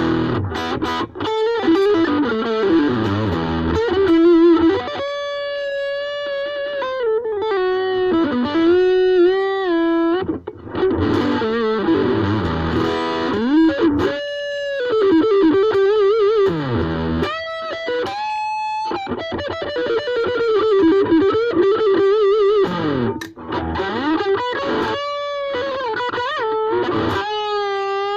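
Ibanez AXS42 electric guitar with a vintage tone capacitor fitted, played as a lead line through effects with some distortion. It plays sustained single notes with vibrato and slides down in pitch, in short phrases.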